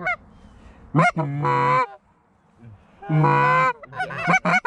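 Canada geese honking: a rising honk about a second in, a longer drawn-out honk around three seconds, then a quick run of short clucks near the end.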